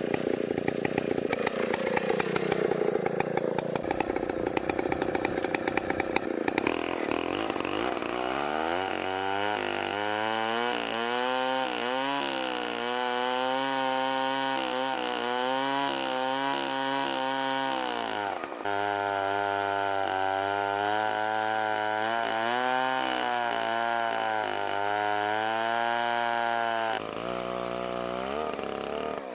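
Stihl 090 two-stroke chainsaw running on a chainsaw mill. After a few seconds it revs up, and its engine note rises and sags repeatedly as it works, with a brief drop about two-thirds of the way through.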